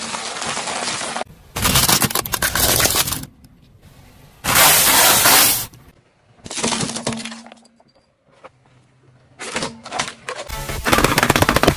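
A car tyre crushing brittle things on asphalt: a string of about six separate crunching, cracking bursts, each a second or so long with short pauses between, as waffle cones and plastic toys break under the wheel.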